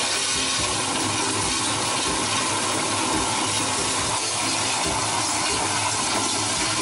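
Flushometer toilet flushing: a steady rush of water into the bowl. This is a test flush with the supply valve partly closed to lower the water pressure, and the flow is now judged right.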